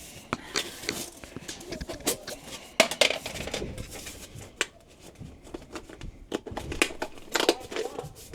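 Sheet-metal dryer vent pipe being handled and cut with snips: irregular sharp metallic clicks and short scrapes.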